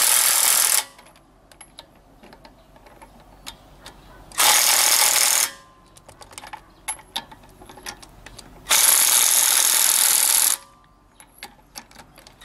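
Impact wrench running on wheel nuts in short bursts of one to two seconds, about four seconds apart, with small metallic clicks in between as the nuts and socket are handled.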